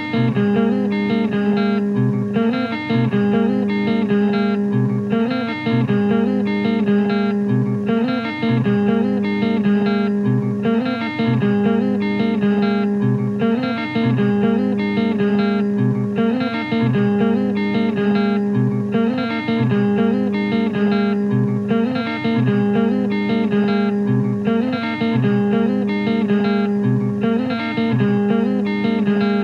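Slow, repetitive guitar music: sustained notes held and broken at even intervals, with a low note coming back about every second and a half.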